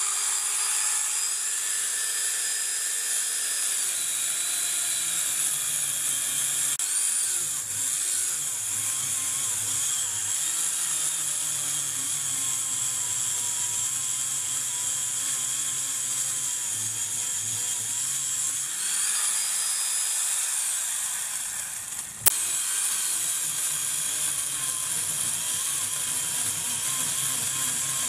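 Electric chainsaw made from a chain-and-bar kit on a RYU angle grinder, running at high speed and cutting through a small tree trunk. The motor's whine drops in pitch as the chain bites into the wood and rises when it runs free about two-thirds of the way through. Then a sharp click, the loudest moment, comes just before it cuts again.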